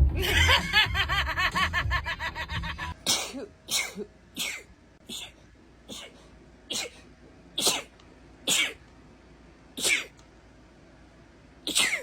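A woman sneezing about ten times in a quick run of short, sharp sneezes, roughly one a second, starting about three seconds in. Before that, music with a plucked bass plays and cuts off.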